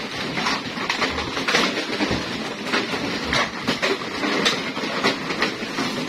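Empty plastic soft-drink crates clattering and knocking against each other as they are tossed onto a pile and stacked: a continuous run of irregular hollow knocks.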